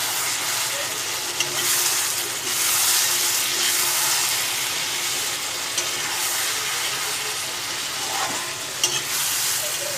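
Chicken and potato curry sizzling in a black kadai while a metal spatula stirs and scrapes through it. A few sharp clinks of the spatula on the pan come through over the steady hiss.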